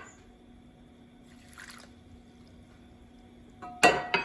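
Water poured softly into dry matzo meal in a glass mixing bowl, about a second and a half in. Near the end comes a short, loud scrape of a silicone spatula stirring the wet mixture against the glass.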